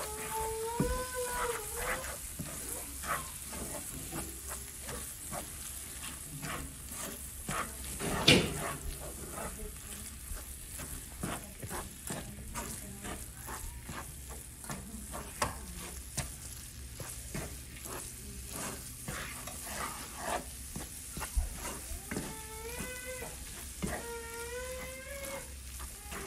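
A spatula stirring and scraping chopped spinach with gram flour in a nonstick frying pan, over a steady sizzle as the water cooks off. There are irregular small taps throughout and one louder knock about eight seconds in.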